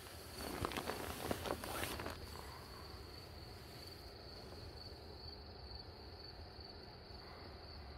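Insects chirring in a faint, steady high tone, with a short spell of rustling inside the tent in the first two seconds.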